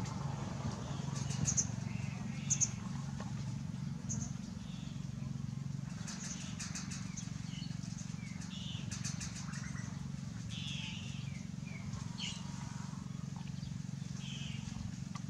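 Background ambience: a steady low hum with scattered short, high bird chirps and a few light clicks.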